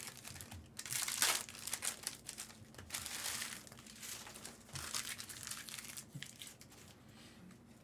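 Plastic wrapping on trading card packs crinkling and tearing in several rustling bursts, each about a second long, growing fainter near the end.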